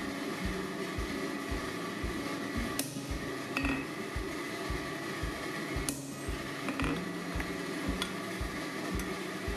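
Workshop machinery running steadily, a low pulse about three times a second under a constant hum, with a few sharp metallic clicks.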